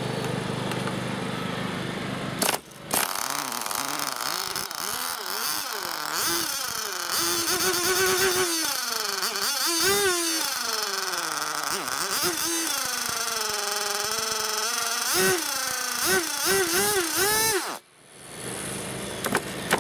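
A .18 single-cylinder two-stroke nitro glow engine for an RC car, running. It idles at first, dips briefly, then is revved up and down again and again, its pitch rising and falling, before the sound drops away sharply near the end. The owner thinks it might be tuned wrong.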